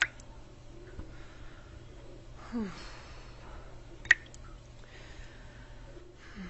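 Two sharp clicks about four seconds apart, with a faint knock and a brief falling sound between them, over a steady low hum.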